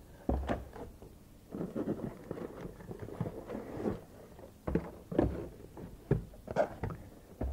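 Cardboard rustling as small boxes are lifted out of a cardboard shipping box, with a series of light knocks as they are set down on a wooden workbench.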